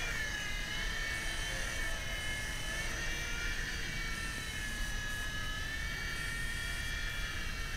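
WLtoys V911 micro RC helicopter hovering: a steady high-pitched whine from its small electric motors and spinning rotor, the pitch wavering slightly up and down.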